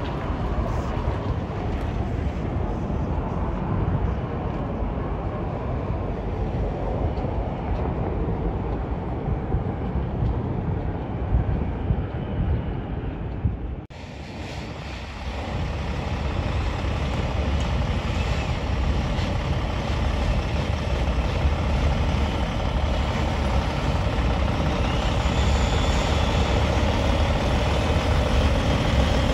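Semi-truck diesel engines running as the big rigs pull by: a steady low rumble that cuts out briefly about halfway through, then a second truck's engine that gets louder as it approaches.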